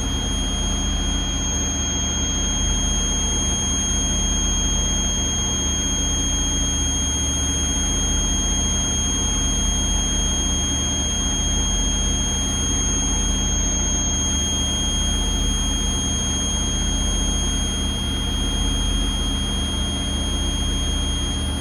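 Blue Bird school bus engine held at about 2,000 rpm to build air pressure, under the dashboard's low air pressure alarm sounding a steady high-pitched tone. The alarm means the air tanks are still below about 60 to 70 psi.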